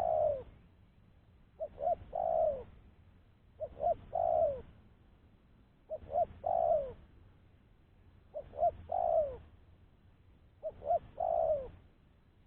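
Spotted dove cooing: each phrase is two short coos followed by a longer coo that falls in pitch, repeated steadily about every two seconds, six times.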